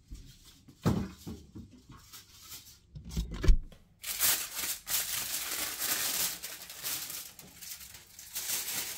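Two dull knocks, then about five seconds of crackly rustling and tearing as packaging is handled and opened.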